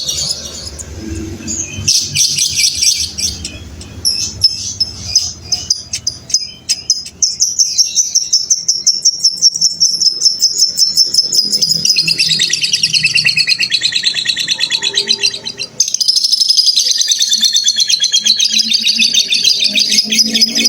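Lovebird singing its long "ngekek" chatter: a rapid, continuous run of shrill chirps that builds up over the first few seconds. It breaks off briefly about three quarters through, then picks up again.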